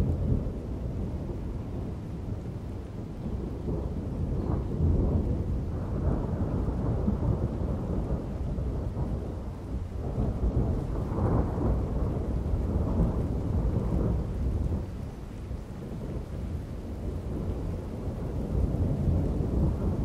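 Rolling thunder rumbling low and continuously, swelling and fading several times, with rain falling.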